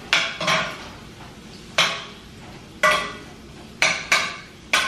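Metal spoon clinking against a metal pan on the stove while stirring and moving food around: about seven sharp, unevenly spaced clinks, each with a brief metallic ring.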